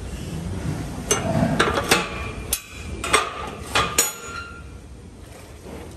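A run of sharp metallic clanks and knocks, each with a short ring, from steel pipe cattle-pen railings being struck. About seven knocks come between one and four seconds in, and it then goes quieter.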